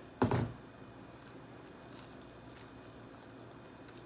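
Eating a piece of fried chicken: a short loud bite about a quarter second in, then soft chewing with faint small clicks.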